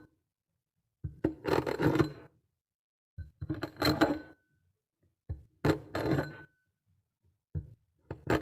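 Kinetic sand crunching in four separate bursts, about one every two seconds. Each burst opens with a sharp click and runs into about a second of gritty scraping, with silence between.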